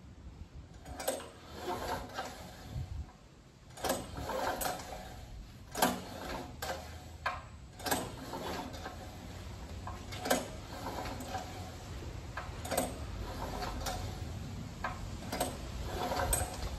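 Portable gasoline generator's recoil starter pulled several times, each pull a short clattering rattle as the engine turns over without catching: the motor is not starting.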